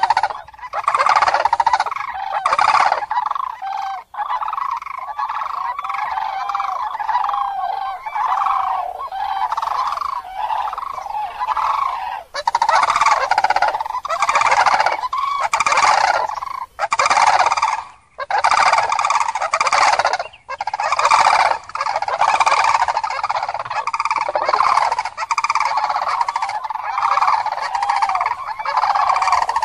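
A flock of cranes calling: many loud trumpeting calls overlapping without pause, with a few brief sudden breaks where the recording cuts.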